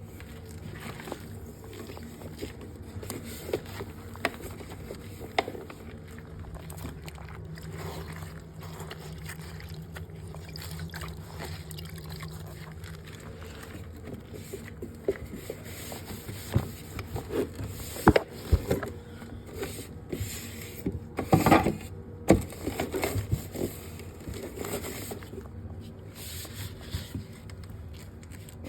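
Scraping and wiping while a fridge is cleaned out, with scattered knocks and a cluster of louder clatters about two-thirds of the way through.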